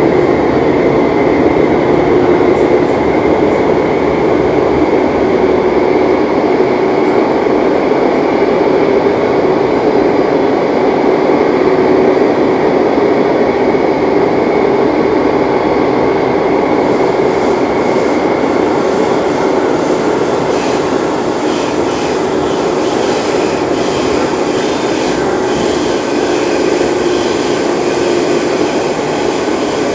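Renfe series 446 Cercanías electric multiple unit running at a steady speed: a continuous hum with a steady whine. From a little past halfway, a dense, uneven clicking and rattling of the wheels on the track joins in.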